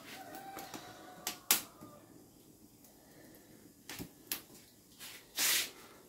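A metal cooking pot clinking and knocking against glass plates as thick cornmeal porridge is poured out: a few sharp clicks, the loudest about a second and a half in, and a short scraping rush near the end.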